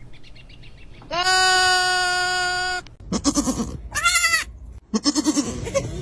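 Goat kids bleating: one long, steady, high bleat lasting nearly two seconds, then three shorter bleats in quick succession.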